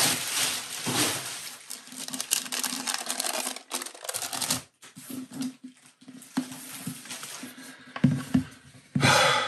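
Plastic bubble wrap crinkling and rustling as it is handled and pulled away, thickest in the first second, then thinning to scattered crackles and light taps against a hard box. A faint steady low hum runs underneath.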